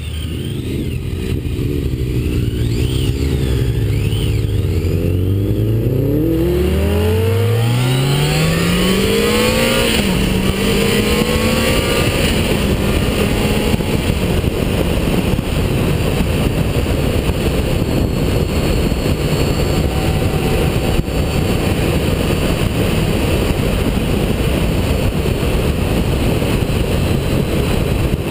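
BMW motorcycle engine accelerating through the gears, its pitch climbing and dropping back at each upshift, then running steadily at speed under a constant rush of wind on the bike-mounted camera's microphone.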